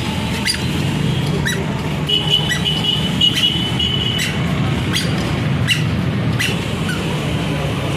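Steady road traffic rumble. A thin, high, wavering tone runs for about two seconds in the middle, and short light clicks come about once a second.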